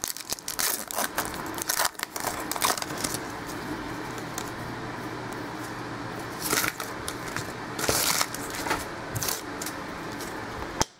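A stack of football trading cards being handled and flipped through: irregular soft clicks and sliding rustles of card stock, with a couple of louder scrapes about six and a half and eight seconds in.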